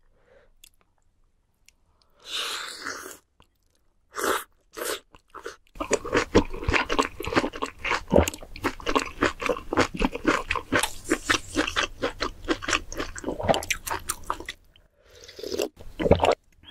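Close-miked eating sounds: a short slurp about two seconds in, then about nine seconds of fast, crunchy, wet chewing, and a slurp of spicy stew broth from a spoon near the end.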